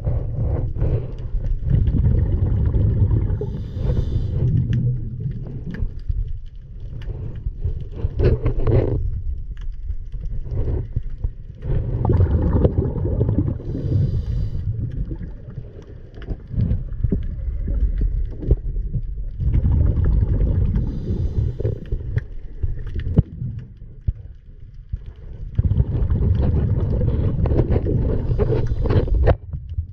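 Muffled underwater rumble and water movement heard through a submerged camera. It swells and fades every several seconds, with a short burst of bubbling about four times.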